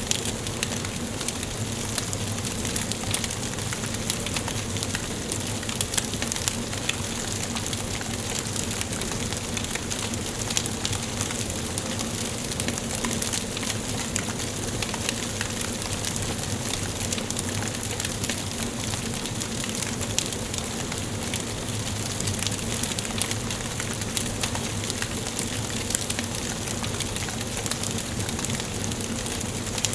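Wood fire burning in a fireplace: a steady hiss with many small, irregular crackles and pops.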